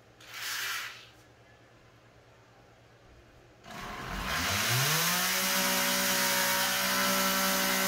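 A corded oscillating multi-tool switched on about halfway through: its motor winds up in pitch over about a second, then runs at a steady speed.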